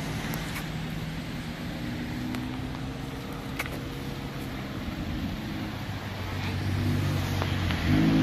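McLaren 720S twin-turbo V8 running at low speed as the car rolls up, a steady low engine hum that grows louder near the end as it draws close.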